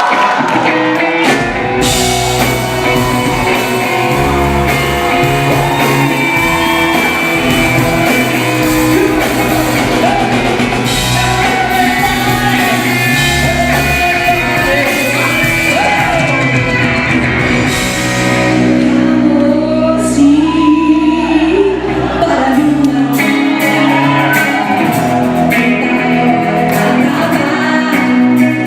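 Live pop-rock band music with a woman singing lead over guitar, bass and drums, heard in a large concert hall.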